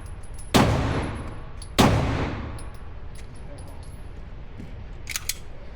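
Two rifle shots about a second and a quarter apart, each a sharp crack with a long echoing tail. A quick run of faint light clicks follows near the end.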